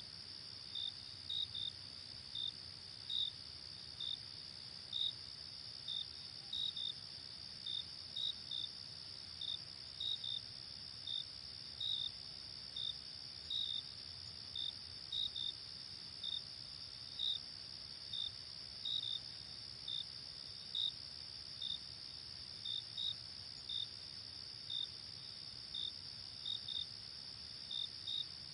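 Night insect chorus: a steady high-pitched trill with crickets chirping over it, short chirps singly or in pairs about once or twice a second, irregularly spaced.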